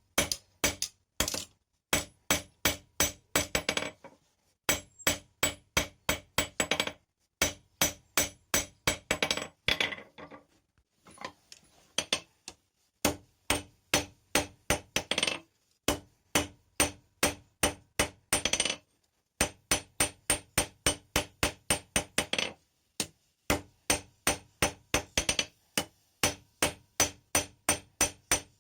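Blacksmith's hand hammer forging steel on an anvil: quick runs of sharp, ringing blows, about three to four a second, broken by short pauses between runs.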